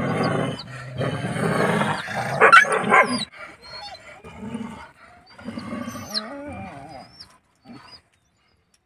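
Free-roaming village dogs vocalizing: harsh, noisy dog sounds for the first three seconds, loudest about two and a half to three seconds in, then shorter cries that waver in pitch until the sound stops about eight seconds in.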